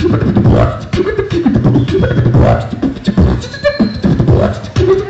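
Live beatboxing into a handheld microphone: fast vocal drum sounds (kicks, snares and hi-hat clicks) mixed with hummed and voiced tones.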